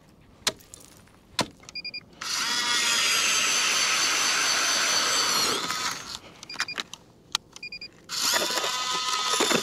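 Electric ice auger boring a test hole through early lake ice to check its thickness: a few sharp clicks, then the motor runs steadily for about three seconds and winds down with falling pitch, and starts up again near the end.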